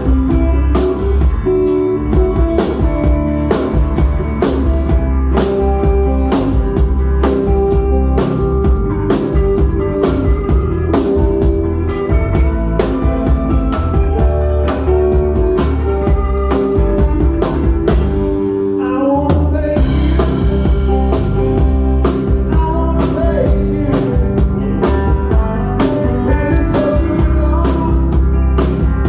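Rock band playing blues-rock with electric lead guitars, bass guitar and drum kit keeping a steady beat. A brief drop just before two-thirds of the way in, then a lead guitar bending its strings.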